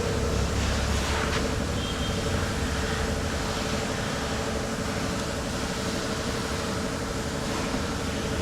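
Steady machine hum with a constant mid-pitched whine over a low rumble.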